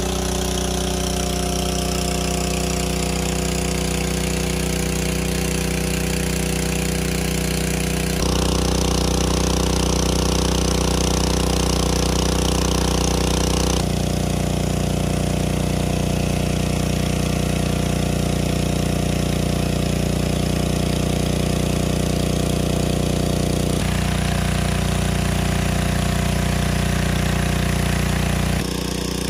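Engine of a large water pump running steadily at constant speed, pumping water out of the pool. Its tone shifts abruptly a few times.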